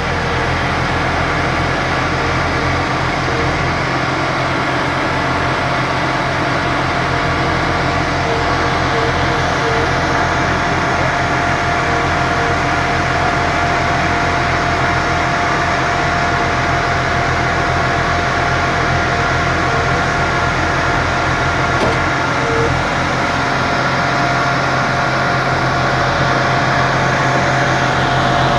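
Truck-mounted borewell drilling rig running steadily: an unbroken engine drone at constant speed with a steady whine over it.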